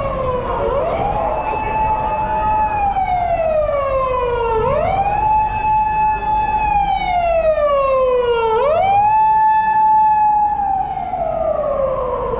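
Emergency-vehicle siren wailing in a repeating cycle. Each cycle is a quick rise, a held high note, then a long slide down, coming round about every four seconds.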